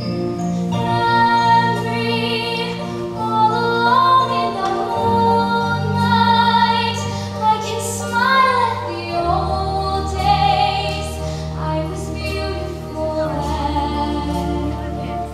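A girl's voice singing a slow, sustained melody with vibrato, over a musical accompaniment of held low chords that shift every few seconds.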